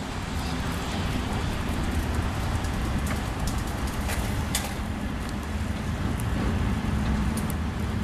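Steady low rumbling background noise, like distant traffic or an engine, with a few faint clicks around the middle and near the end.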